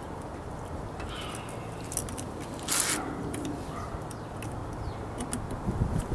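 Small clicks and handling noises as plastic wiring-harness connectors are pushed onto the terminals of a washer's water inlet valve solenoids, with a short rustle a little under three seconds in, over a steady low background noise.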